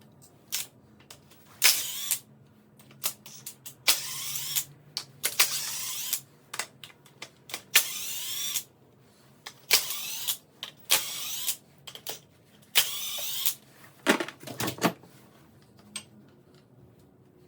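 Ratchet wrench working bolts loose on an engine's front cover: short bursts of rapid clicking, roughly one stroke a second with brief pauses, and a few single knocks of metal near the end.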